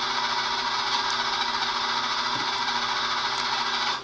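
MIG welder current arcing at the terminal of a 14.4 V nicad drill battery pack, a steady crackling buzz over a low electrical hum, as the dead pack is zapped to revive it. The crackle cuts off right at the end as the gun is pulled away.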